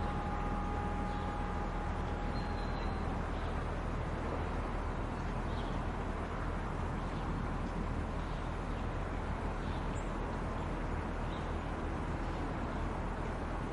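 Steady outdoor background rumble and hiss with a constant low hum, and faint short ticks now and then.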